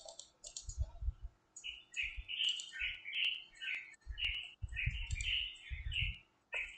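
Computer mouse clicking several times as Wekinator's recording button is pressed, over repeated short high chirps and irregular low thumps.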